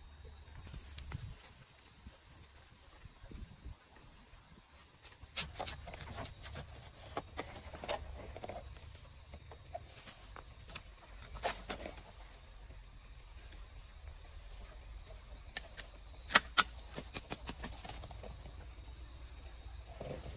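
A steady high-pitched insect drone, with scattered sharp snaps and cracks over it; two loud cracks close together stand out about four seconds before the end.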